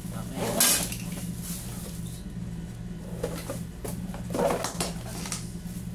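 Ring light set being unpacked by hand: a few short rustling, scraping handling noises, the loudest about half a second in and again about four and a half seconds in, over a steady low hum.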